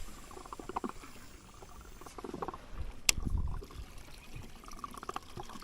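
Faint water lapping and trickling against a drifting small boat, with scattered light knocks and one sharp click about three seconds in.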